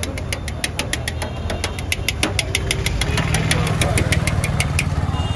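Metal spatula chopping and scraping egg in a metal frying pan in quick, even strokes, about six clinks a second, which stop shortly before the end. A vehicle engine runs steadily underneath.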